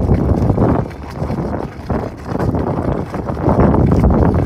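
Hot water splashing and gurgling inside a geyser vent in sinter rock, coming in irregular surges.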